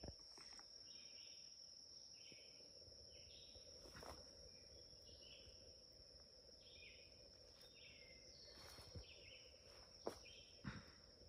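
Faint summer woodland ambience: a steady high-pitched insect drone, with a bird repeating a short call note about once a second. A few faint clicks near the end.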